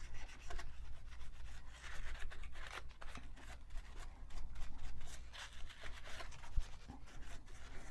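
A part of a 1960s Singer 223 sewing machine being wiped clean of old oil by hand: soft, irregular rubbing and scratching strokes, with a small tap about six and a half seconds in.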